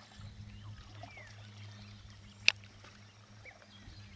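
Canoe paddles faintly working the water over a steady low hum, with one sharp click about halfway through and a couple of faint high chirps.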